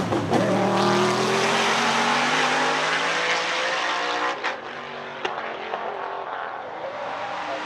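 Roush V8 of a 1995 Ford Mustang Cobra GTS-1 Trans Am race car accelerating hard away up a hillclimb, rising in pitch, with two quick upshifts about four and a half and five seconds in. It grows fainter as the car pulls away.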